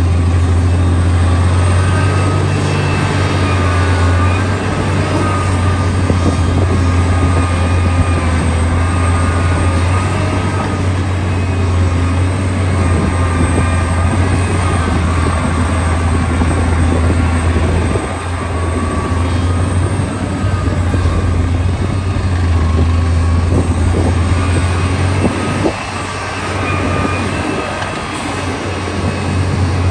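A construction machine's engine running with a steady low drone. A few short knocks come through in the second half.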